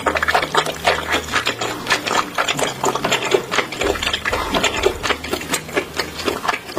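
Close-miked chewing of a mouthful of spicy seafood: rapid, irregular clicking and smacking from the closed mouth, several times a second.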